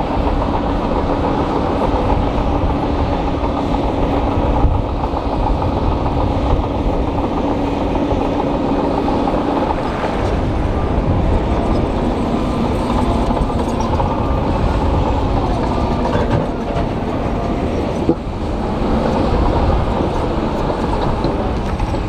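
Heavy diesel machinery running steadily, a dump truck tipping a load of rock and soil beside a crawler bulldozer. A steady hum drops away about ten seconds in, and there is a single sharp knock late on.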